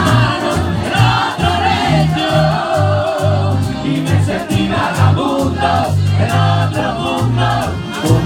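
A live band playing, with voices singing over a bass line of changing notes and a steady percussion beat.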